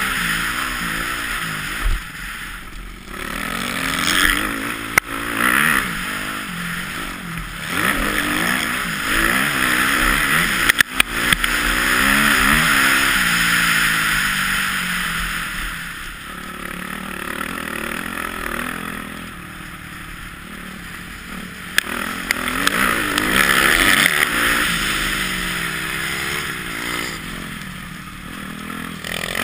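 Dirt bike engine revving up and falling back again and again as the rider accelerates and shifts around a motocross track, heard from a helmet camera with wind rushing over the microphone. A few sharp knocks come through from bumps and landings.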